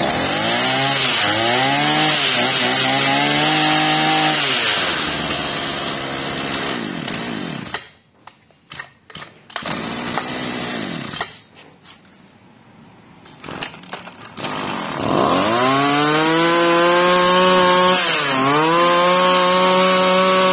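Small two-stroke petrol brush cutter engine revved up and held at high revs, then let fall away to idle or stopping a few seconds in. After a quiet stretch with a few knocks it is run up to high revs again, with a brief dip and re-rev near the end.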